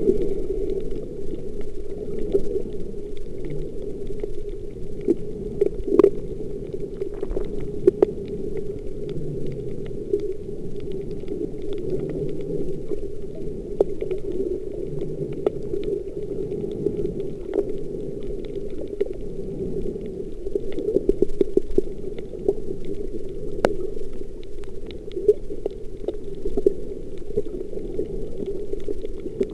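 Muffled underwater sound picked up by a camera below the surface while snorkelling: a steady low water rumble with scattered clicks and crackles.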